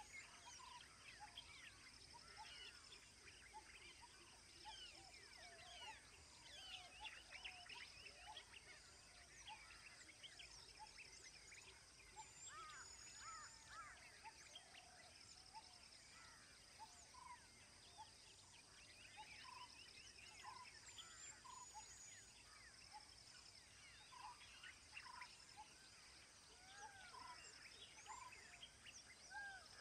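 Faint chorus of wild birds chirping and whistling, many short calls overlapping, over a steady high insect trill.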